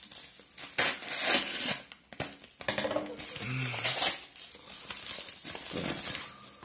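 Yellow padded mailing envelope slit with a knife and torn open by hand: irregular bursts of ripping and crinkling paper, loudest about a second in and again around three to four seconds in.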